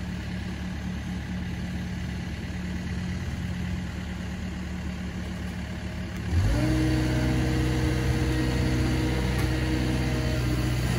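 Takeuchi TB250 mini excavator's diesel engine running steadily at low revs, then revving up about six seconds in and holding at the higher speed while the boom carries a fibreglass pool shell.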